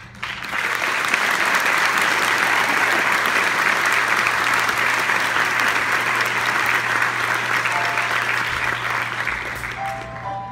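Audience applauding, starting suddenly just as a choir song ends, holding steady and thinning out near the end.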